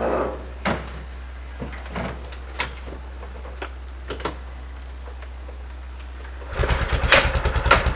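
A few light knocks and clanks of a metal fold-up ATV ramp being set in place, then, about six and a half seconds in, a four-wheeler engine comes in suddenly and runs at a rapid, even-pulsing idle.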